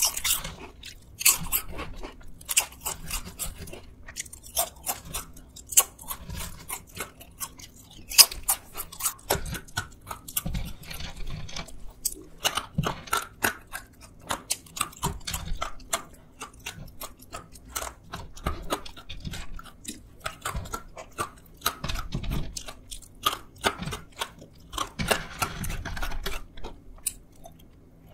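Close-up crunching and chewing of crisp snacks, thin potato chips and fried sweet potato sticks, eaten bite after bite: a fast, irregular run of sharp crunches with softer chewing in between.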